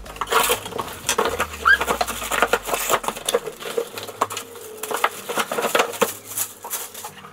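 Package being torn and pulled open by hand: irregular crinkling, rustling and clicking of the packaging, with a short rising squeak about one and a half seconds in.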